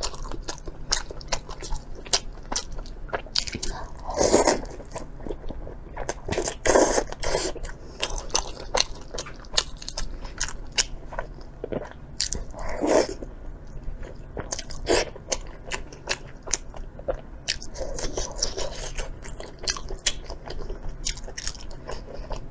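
A person biting into and chewing a large fried dough stick (youtiao): crisp crunches, loudest about 4, 7 and 13 seconds in, with many small chewing clicks between.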